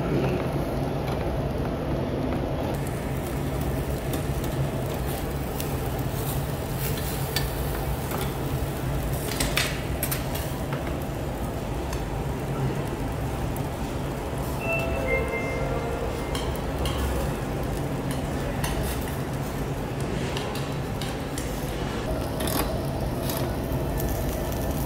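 Intestines and a sausage sizzling on a charcoal grill's wire mesh, with metal tongs clicking against the grate and dishes now and then. A steady low hum runs underneath.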